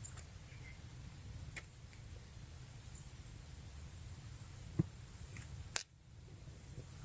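A few scattered sharp snaps and clicks from twigs and damp kindling as a small campfire is being started, the loudest about six seconds in, over a steady low rumble.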